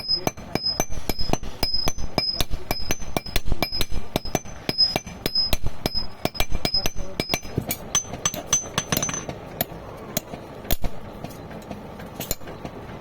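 Hammers striking iron on an anvil in quick succession while forging nails by hand, about four blows a second, each with a bright metallic ring that alternates between two pitches. About nine seconds in the ringing blows stop and a few duller, scattered knocks follow.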